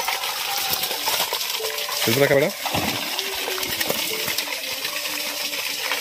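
Small splashes and wet slaps of fish being pulled from a net in shallow muddy water, a steady crackle of dripping and splashing. A short voice is heard about two seconds in.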